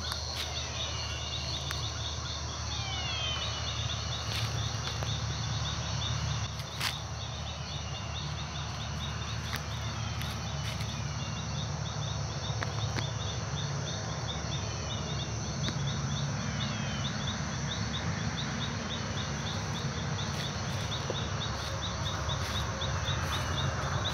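Chorus of insects chirping in rapid, steady pulses, with occasional short falling calls from other night animals and a few light clicks over a low rumble.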